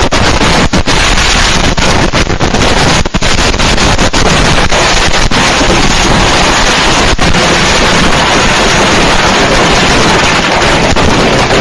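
A stash of fireworks going off all at once: a continuous loud mass of bursts and crackling, with sharper bangs standing out now and then.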